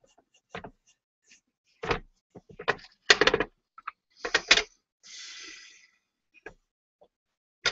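Tissue rubbing on a kintsugi-repaired bowl while it is wiped and handled over a wooden tray: a run of short scuffs and knocks, with a steady hiss of about a second just past the middle, then a few light clicks.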